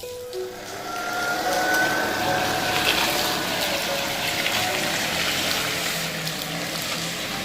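A steady rushing noise that swells about a second in, with a few faint held musical notes over it.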